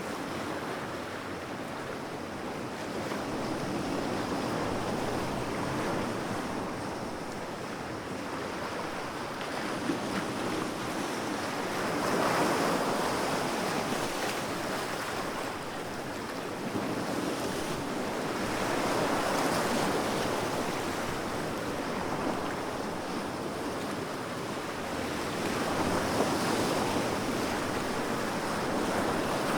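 Large ocean waves breaking on the shore, a steady wash of surf that swells and eases every several seconds.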